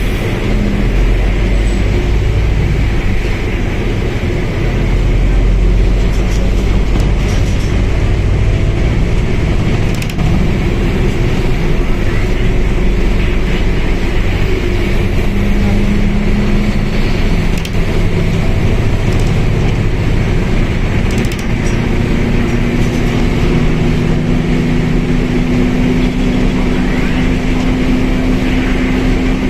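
Mercedes-Benz OF1721L bus running under way, a steady diesel rumble with drivetrain noise. Past halfway a steady whine sets in and holds, the kind of differential whine the recording is made to capture.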